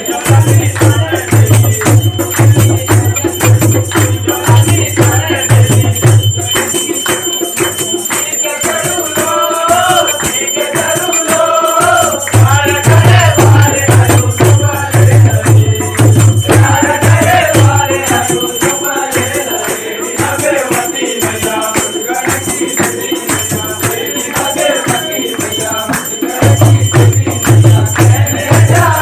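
A group of young men singing a Kumauni bhajan together, with steady hand-clapping and a dholak drum keeping the beat.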